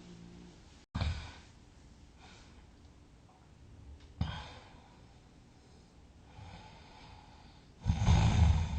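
A sleeping person breathing and snoring: a sharp snort about a second in, another about four seconds in, and a loud, low snore near the end.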